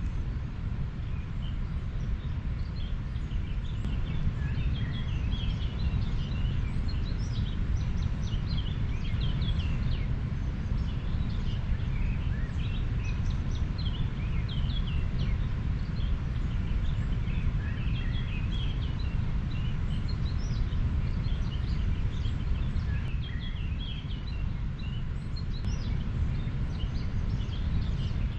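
River water flowing in a steady low rush, with many small birds chirping throughout.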